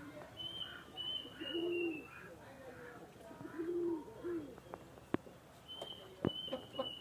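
Domestic pigeons cooing: several low, rolling coos in the first part. Thin high whistled notes from another bird come early and again near the end. Two sharp clicks sound in the later part.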